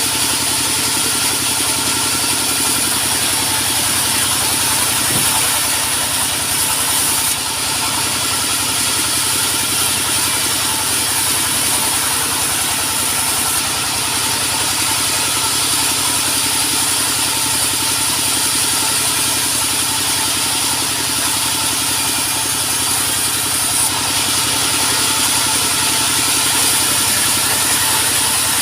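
Sawmill machinery running steadily: an engine under a continuous high hiss.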